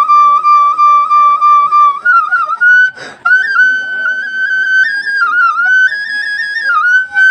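Solo side-blown flute: one long held note with a slight waver, then a brief breath about three seconds in and a higher melodic phrase with quick ornamental bends and turns.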